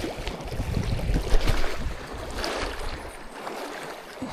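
Wind buffeting the microphone over the sound of lapping water; the low rumble of the wind eases about three seconds in.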